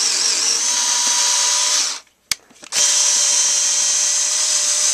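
Genesis 7.2-volt cordless screwdriver running at its high speed while drilling into wood with its supplied drill bit, which is failing to cut. The motor stops about two seconds in, there is a single sharp click, and then it runs again.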